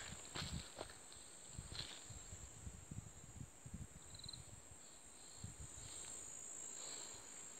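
Faint steady high-pitched insect chorus, with scattered soft low thumps and a short high chirp about four seconds in.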